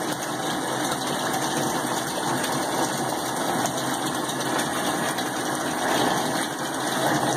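A steady machine-like running noise, even and unbroken.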